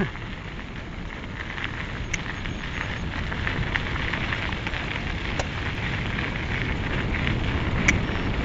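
Mountain-bike tyres rolling downhill over a loose dirt-and-gravel track: a steady crunching hiss that grows gradually louder, with three sharp clicks along the way.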